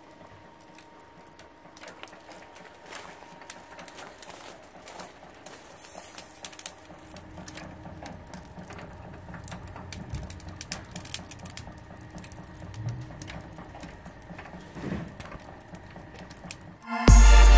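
Charcoal rotisserie with skewered meat and vegetables turning over hot coals: an irregular run of small crackles and clicks from the coals and dripping juices. Loud music cuts in near the end.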